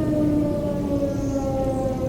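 Sentry 14V-B outdoor warning siren sounding for its routine monthly test, heard from about half a mile away. Its steady tone slides slowly downward in pitch.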